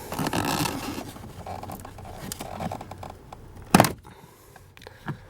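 Plastic dashboard trim on a Jeep Cherokee being worked loose by hand after its screws are out: scraping and rustling, then one sharp clack a little under four seconds in.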